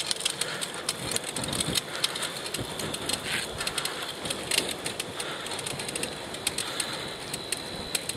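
Riding noise on a cyclist's earpiece microphone as the recumbent bike rolls along a paved road: a steady hiss of wind and tyres with many small, irregular crackles and ticks.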